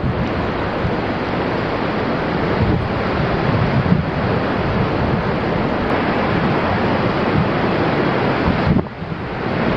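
Wind buffeting the microphone: a steady, loud rushing with uneven low gusts, easing briefly near the end.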